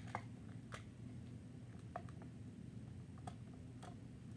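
Translucent plastic magnetic building tiles clicking lightly together a few times, spaced apart, as they are handled and fitted into place.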